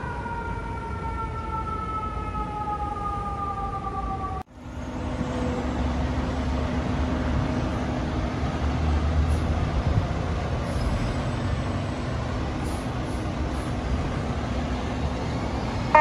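An emergency vehicle's siren holds a single tone that slowly falls in pitch, then cuts off abruptly about four and a half seconds in. After that comes street traffic noise with a heavy truck engine's low rumble and a steady low hum.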